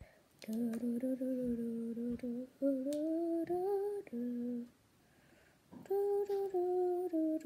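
A person humming a tune with closed lips, holding steady notes that step up and down, in two phrases with a short pause about five seconds in.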